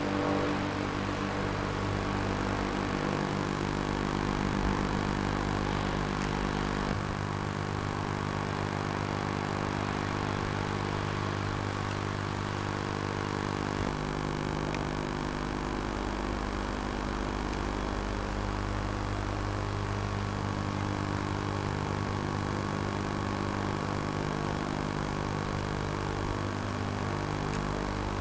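A steady low mechanical hum made of several held tones, with no distinct knocks or bangs.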